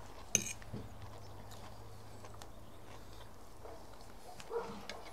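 Quiet sounds of eating at a table: a sharp clink of cutlery against a plate about a third of a second in, a few softer knocks, and a brief low voice-like sound near the end.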